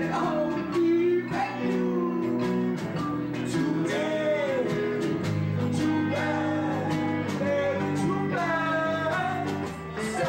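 Live band music: guitar, drums with cymbal hits and a mallet keyboard, with a voice singing over held tones.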